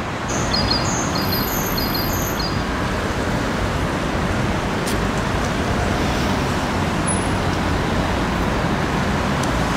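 Steady street traffic noise. In the first few seconds a short high chirp repeats four times, about half a second apart.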